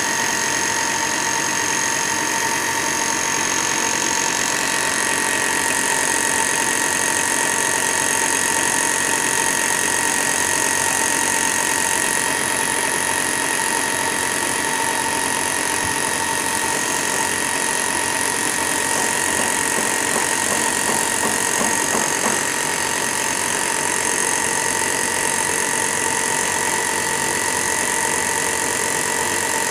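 Compressed-air cup spray gun hissing steadily as it sprays clear lacquer, with a steady machine whine underneath.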